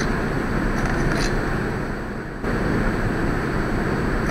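Steady background noise of room ambience, a hum and hiss with no distinct event, dipping briefly just after two seconds.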